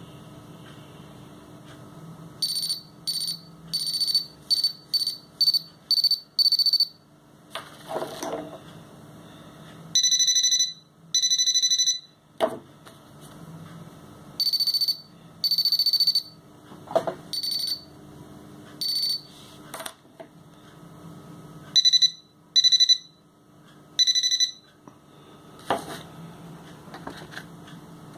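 Buzzer of a homemade pinpointer metal detector giving short high-pitched beeps, signalling metal near its search coil. First comes a run of about eight beeps that speed up, then longer beeps and pairs of beeps on and off, with a few light knocks between them.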